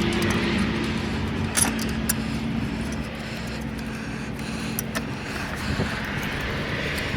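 A car engine idling with a steady hum that fades out about five seconds in, under scattered metallic clicks and clinks.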